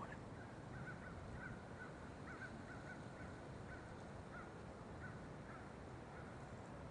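Faint, distant bird calls, a scattered run of short notes, over a quiet background hiss.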